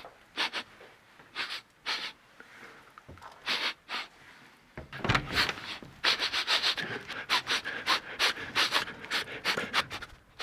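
A man sniffing hard like a tracking dog: short, sharp sniffs, a few at a time and spaced out at first, then quick runs of sniffs from about six seconds in.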